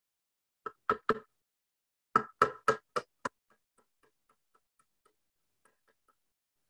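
Claw hammer driving small nails into a wooden board: three sharp strikes, a short pause, then five quicker strikes, followed by a few much fainter light taps.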